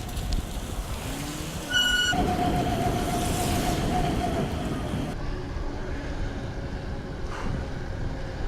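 Steady wind and tyre noise from a bicycle ride in the rain. About two seconds in comes a brief high beep, then a steady tone under louder noise for about three seconds.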